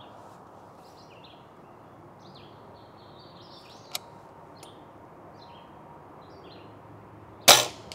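A Daisy Powerline 1101S spring-piston break-barrel air rifle firing a single sharp shot near the end. Birds chirp throughout.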